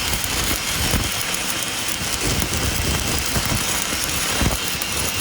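Electric arc welding: a steady crackling hiss of the arc.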